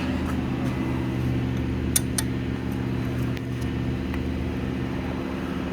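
A steady low mechanical hum running on evenly, with two or three light sharp clicks about two seconds in.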